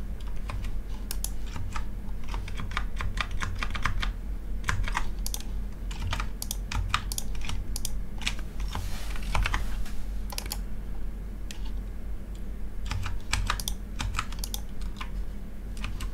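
Computer keyboard keys clicking in quick, irregular clusters, as shortcuts are tapped, over a steady low hum.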